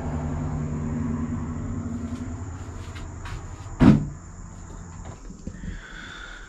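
A motor vehicle's engine hum fading away over about three seconds, then a single sharp knock a little under four seconds in, over a steady high insect drone.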